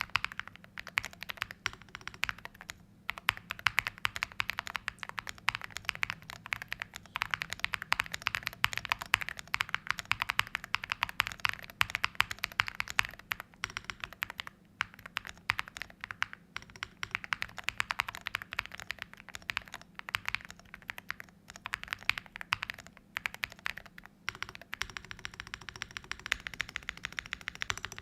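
Typing on a stock Record Alice V2 mechanical keyboard with Gateron Lunar Probe switches and MT3 keycaps: a fast, continuous run of keystroke clacks, broken by a few brief pauses.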